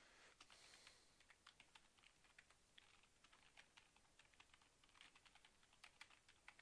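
Faint typing on a computer keyboard: a quick, irregular run of keystroke clicks.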